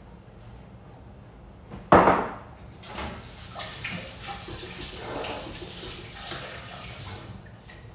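A sharp knock about two seconds in, then water running from a tap for about four seconds before it is shut off.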